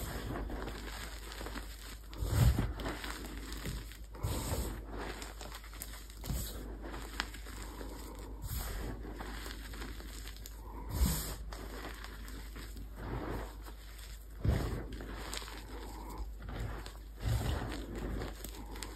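Hands squeezing, pressing and patting crushed soft gym chalk dusted with baby powder: soft, irregular crunching and rustling of the powder, with a few louder pats and crunches spread through.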